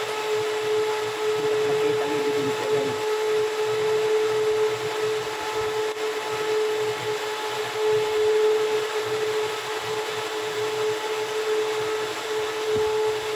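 A machine's electric motor running steadily: a constant mid-pitched hum over a rushing noise, unchanging throughout.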